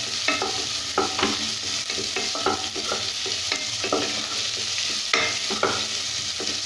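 Sliced onions, garlic and ginger sizzling in hot oil in a non-stick pan while a wooden spatula stirs them, scraping and tapping the pan about twice a second. The onions are being sautéed only until they lightly change colour.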